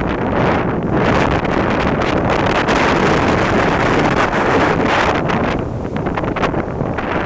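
Storm wind buffeting the microphone: loud, gusting rushing noise that eases a little about five and a half seconds in.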